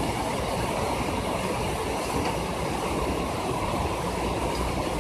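Rain falling on a ledge and on the casing of the phone that is recording it, a dense steady patter with no let-up.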